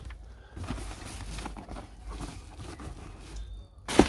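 Packaging being handled while a parts box is unpacked: soft rustling and light knocks, with one sharp knock near the end.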